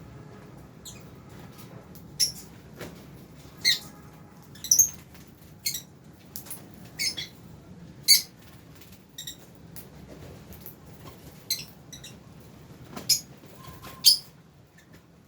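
A flock of lovebirds, albino and Fischer's lovebirds among them, giving short, sharp, high-pitched chirps and squawks at irregular intervals, about a dozen in all, over a low steady background hum.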